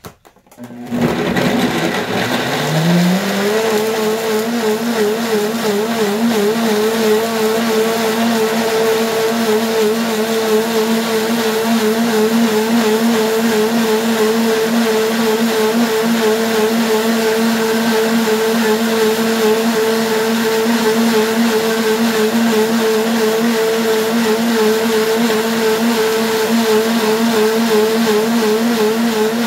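High-speed blender switched on about a second in, its motor spinning up with a rising whine over about two seconds, then running steadily as it blends fruit and water.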